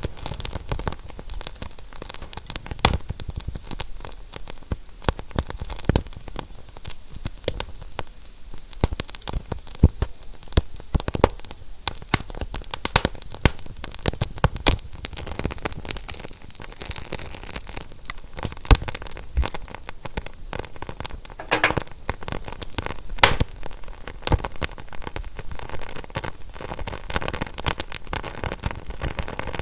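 Fire crackling: irregular sharp pops and snaps over a soft steady hiss, with a few louder pops about two-thirds of the way through.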